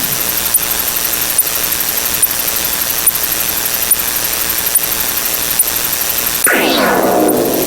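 Electronic sound effect: loud, steady static hiss with a faint tick a little more than once a second, and a falling, many-toned pitch glide starting near the end.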